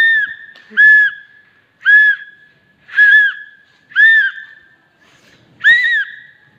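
A whistle blown in six short, shrill blasts, about one a second with a longer pause before the last, each rising and falling slightly in pitch.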